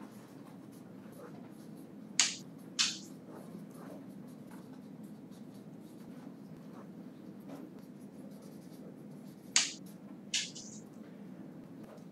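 Short scratchy writing strokes, likely pencil or chalk, in two pairs about half a second apart: one pair around two seconds in and one near the end. They sit over a steady low classroom room tone.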